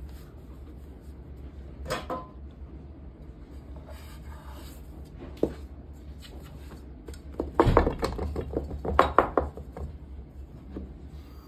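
A frying pan knocking and clattering against a countertop while a filled dough round is laid into it and its edges pressed down: a knock about two seconds in, a sharp click near the middle, then a quick run of clattering knocks toward the end, the loudest part.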